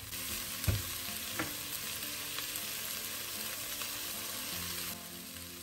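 Chopped vegetables sizzling in hot oil as they sauté in a pot, with a spatula stirring them and knocking against the pot a couple of times in the first second or two.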